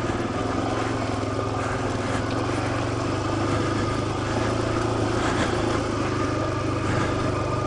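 Suzuki dirt bike engine running steadily at low, even revs, with faint clicks and rattles over it.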